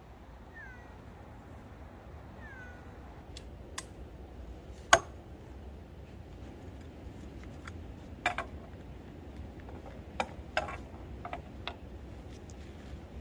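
Two short, high calls falling in pitch, cat-like, in the first few seconds. Then a series of sharp knocks and clacks as tent poles are handled on a wooden deck, the loudest a single hard knock about five seconds in.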